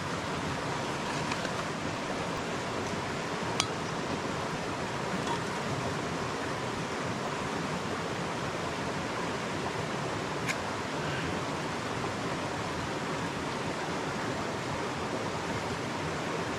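Steady rush of flowing river water, even and unbroken, with two small sharp clicks, one a few seconds in and another about ten seconds in.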